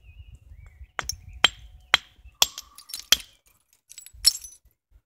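Flint knapping: a striker hitting the edge of a flint nodule being shaped into a handaxe, about seven sharp clinking strikes, most about half a second apart with a last one after a short pause, each knocking off a flake.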